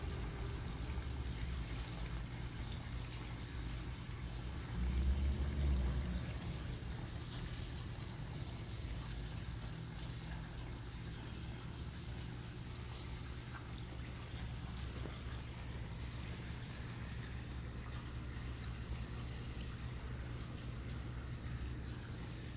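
Water trickling and splashing in a small artificial waterfall of a nativity display, over a steady low hum. A brief low rumble comes about five seconds in.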